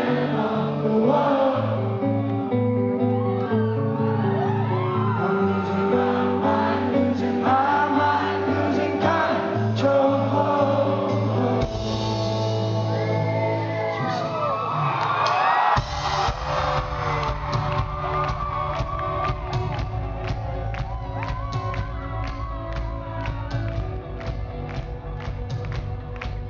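Live rock band playing with vocals: sung lines over sustained guitar and keyboard chords. About two-thirds of the way in, the bass and drums come in with a steady driving beat.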